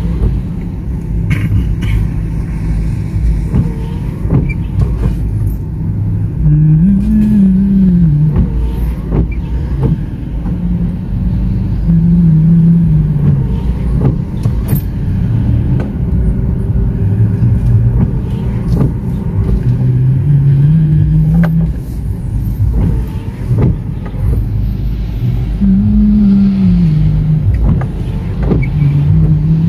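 Steady low rumble of a car's engine and road noise heard from inside the cabin in rainy traffic, with windscreen wipers sweeping the wet glass. A low hum rises and falls in pitch every few seconds, and there are scattered light clicks.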